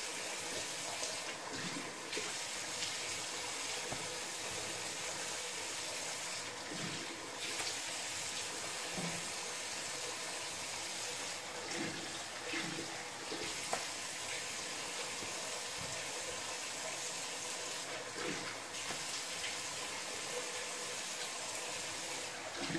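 Bathroom tap running steadily into a sink while a face is rinsed with lukewarm water. The hiss of the stream dips briefly a few times.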